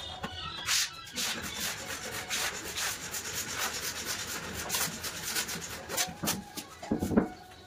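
Rapid rubbing and scraping on wood, a dense run of short strokes like hand sanding, from about a second in until about six seconds. A few duller knocks follow near the end.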